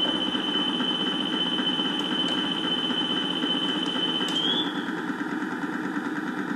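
Mating sexed robots sounding a steady high electronic tone, held for about four and a half seconds and bending briefly upward before it stops, over a steady mechanical hum.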